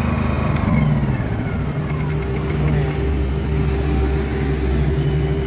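Honda EP1000 portable generator engine running. About a second in, its pitch drops and then holds at a lower steady drone.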